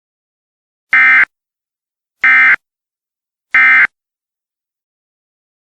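Emergency Alert System end-of-message signal: three short, identical buzzy bursts of SAME digital data tones, evenly spaced about a second and a third apart, marking the end of the alert broadcast.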